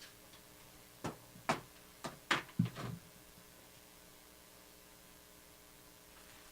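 A quick run of about six light knocks and taps in two seconds, like items being handled and set down on a table, then only a faint steady hum.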